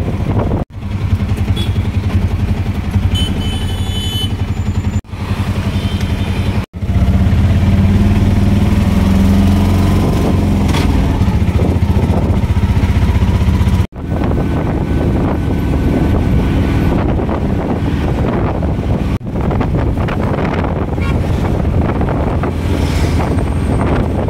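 Auto-rickshaw engine running steadily while driving, heard from inside the open cabin along with road noise. It is louder for several seconds in the middle, and the sound breaks off abruptly a few times.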